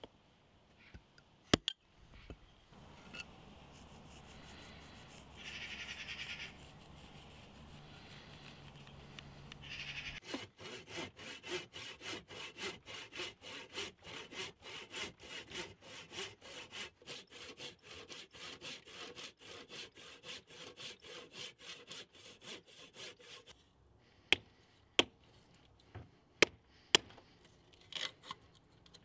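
Hand saw cutting through a small block of wood, in an even run of back-and-forth strokes lasting about thirteen seconds, after a fainter steady hiss. Near the end come several sharp knocks, louder than the sawing.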